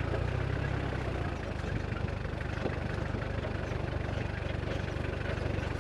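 A 4x4's engine running steadily at low revs, heard from inside the cabin as it crawls over a rocky track, with scattered small rattles and knocks.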